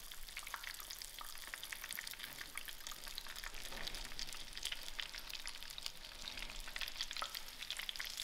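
Chip-crumbed chicken breasts frying in hot oil in a pan: a steady sizzle with many small crackles and pops.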